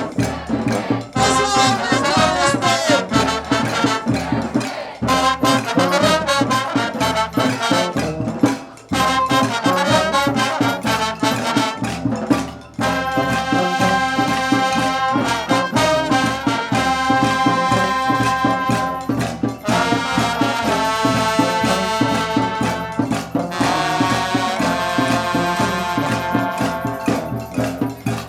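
Brass music with a steady drum beat, the horns wavering at first and then playing long held notes from about halfway through.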